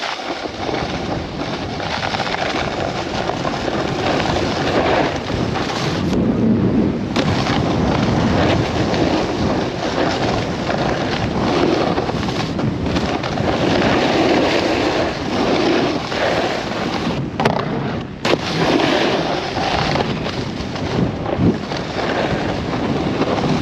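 Wind buffeting a helmet-mounted action camera's microphone while snowboarding downhill, mixed with the board scraping over packed snow. The noise is loud and continuous, with two brief lulls.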